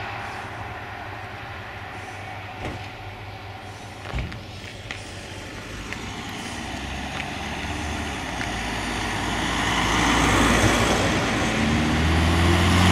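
Fire truck diesel engine running, growing steadily louder over the second half as the truck comes close; the engine's steady tone is loudest near the end.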